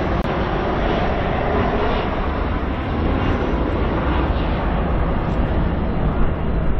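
Boeing 747-400's four jet engines running at taxi power, a steady broad rumble with no rise or fall.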